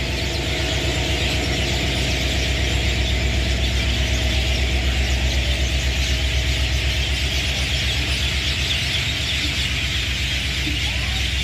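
Passenger train coaches rolling slowly past as the train departs: a steady low rumble of the wheels on the rails, with a continuous high-pitched squeal.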